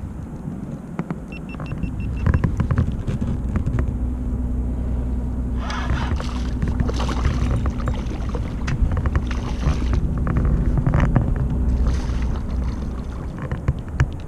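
Hooked striped bass splashing and thrashing at the surface beside a kayak during the fight, in splashy spells about halfway through and again later. A steady low rumble and hum run underneath.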